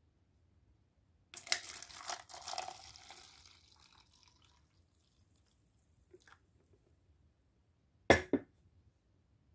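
Hot coffee poured from a glass carafe into a plastic cup: a splashing stream for about three seconds that tapers off as the pour ends. Near the end come two sharp knocks, the loudest sounds.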